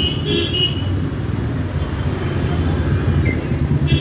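Motorcycle engine running steadily at low speed in slow, busy city street traffic, with a few short high-pitched beeps in the first second.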